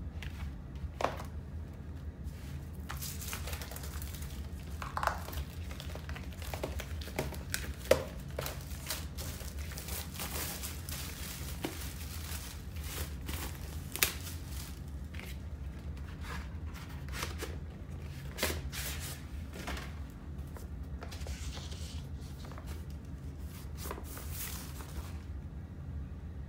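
Vinyl record packaging being handled: the paper inner sleeve and card photo insert rustle, slide and crinkle in irregular bursts, with a few sharp taps and clicks, over a steady low hum.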